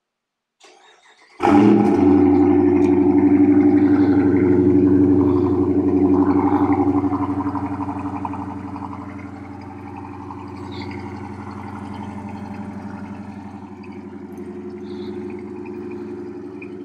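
2020 Chrysler 300S's 5.7-litre Hemi V8, through Carven R mufflers and 5-inch tips, cranks briefly and starts with a loud burst about a second and a half in. It runs loud for several seconds, then settles to a steady, quieter idle from about eight seconds in. The engine has been run recently, so this is not a true cold start.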